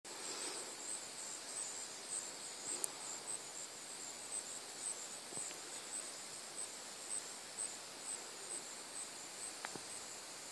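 Crickets chirping outdoors: a steady, high-pitched chirp repeating about twice a second. A single sharp click about three seconds in.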